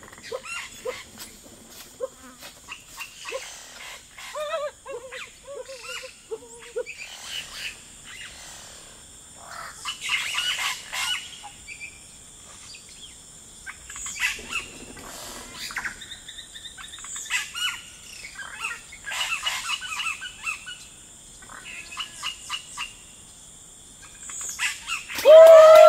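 Leaves and bamboo rustling and crackling as people push through dense undergrowth, over a steady high drone of jungle insects, with a few wavering bird whistles. Near the end comes a loud, wavering vocal call that falls in pitch.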